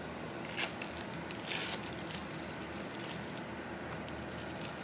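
Clear plastic wrapper crinkling as an individually wrapped cheese slice is peeled open, in two short rustles over a faint steady room hum.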